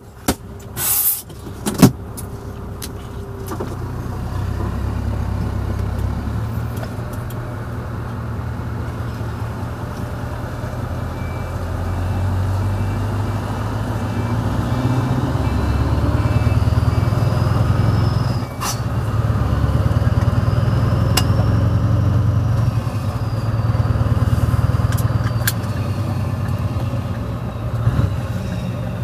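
Scania R500's V8 diesel on loud pipes, running under way as heard from inside the cab: a deep, steady rumble that swells and eases in loudness, with a brief dip about two-thirds through. A short hiss and a sharp click come in the first two seconds.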